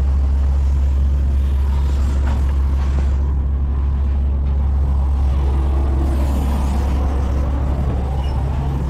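Short school bus engine idling with a steady low drone.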